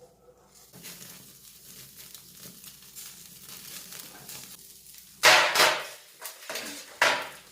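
Meat sizzling on a grill grate over charcoal, with loud clatters of metal twice, about five seconds in and again near the end.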